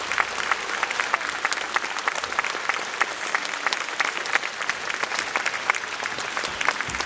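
Concert-hall audience applauding, a dense steady run of many hands clapping.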